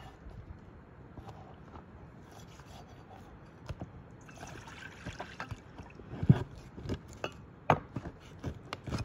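Large knife cutting through a raw chicken on a wooden cutting board: soft moist slicing sounds with scattered taps of the blade, and two louder knocks of the knife on the board in the second half.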